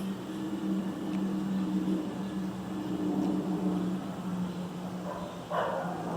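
City morning ambience carried by a steady low engine drone. About five and a half seconds in, a dog starts barking.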